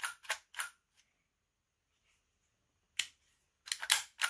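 Sharp mechanical clicks from a partly reassembled Byrna HD air pistol's trigger and firing mechanism, worked by hand to check that it fires. Three quick clicks, a pause of about two seconds, then a single click and a fast run of clicks near the end.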